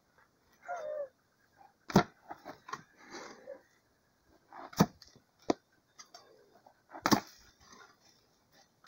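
A hoe chopping into soil and roots at the base of a banana plant, digging out a banana sucker: several sharp strikes a second or two apart, with lighter scrapes between.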